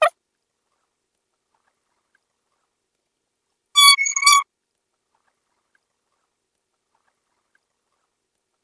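Silence, broken about four seconds in by three quick high-pitched squeaks in a row, each a steady tone lasting well under half a second.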